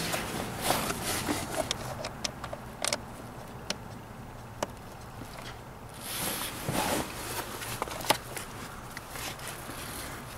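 Scattered clicks, taps and scrapes of hands handling the plastic blower-fan housing and dashboard trim of a Seat Ibiza 6J, with a longer rustling scrape about six seconds in.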